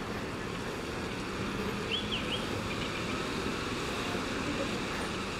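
Steady outdoor rumble and hiss with a low hum, like a vehicle engine idling nearby, and a faint brief chirp about two seconds in.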